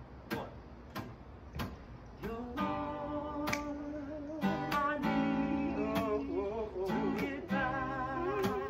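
Acoustic guitar playing a slow soul intro, with finger snaps on each beat. About two seconds in the chords ring out fuller, and a wordless voice joins in around the middle.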